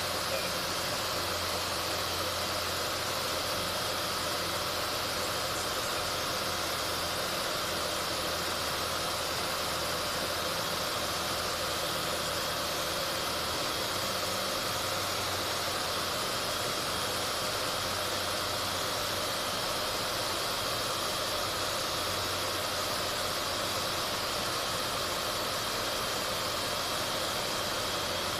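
Single-engine piston airplane heard from inside the cockpit on landing: the engine throttled back to low power, with a steady rush of airflow noise over a low engine drone.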